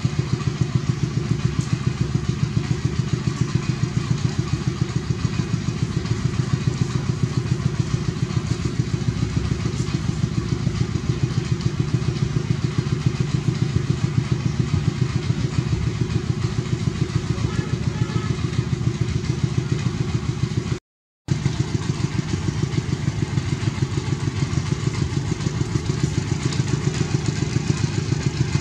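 A small engine running steadily with an even pulse of about five beats a second. The sound drops out completely for a moment about three-quarters of the way through.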